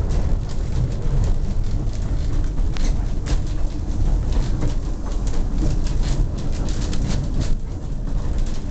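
Old wooden narrow-gauge railway carriage on the move, heard from inside: a steady low rumble of the wheels on the rails with constant irregular rattling and clicking of the wooden body and fittings.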